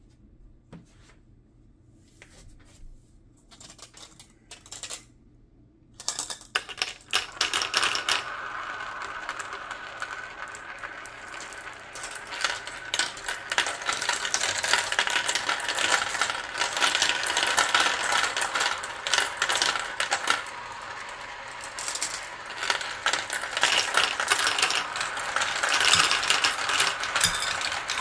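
Glass marbles rolling and clattering through a plastic marble run, many of them circling together in its large funnel bowl. A few scattered clicks at first, then from about six seconds in a dense, continuous rattle of marbles clicking against each other and the track, louder in the second half.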